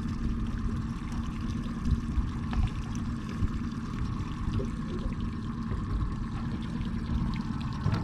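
Outboard motor running steadily at slow trolling speed, with water rushing and splashing along the boat's hull.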